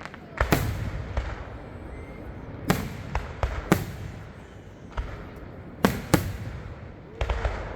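Aerial fireworks shells bursting: about eight sharp bangs at irregular intervals, each followed by a trailing echo.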